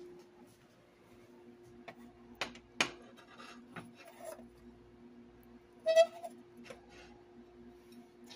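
Kitchen handling of a plate: a few light clicks and knocks, then a brief ringing clink about six seconds in, the loudest sound. A steady low electrical hum runs underneath.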